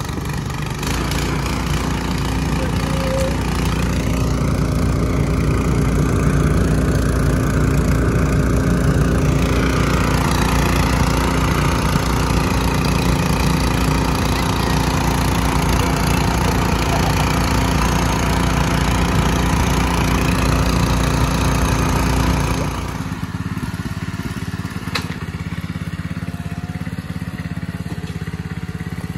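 Single-cylinder engine of a two-wheel 'pat pat' walking tractor running steadily while it is driven along a road, heard up close. About two-thirds of the way through, the low end drops away and the engine sounds farther off.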